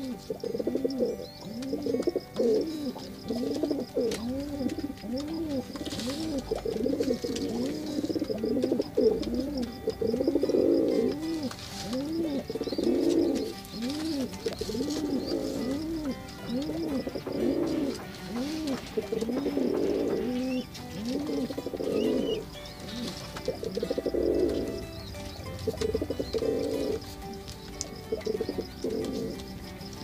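Domestic pigeons cooing: a steady run of repeated rising-and-falling coos, about one or two a second, with several birds overlapping.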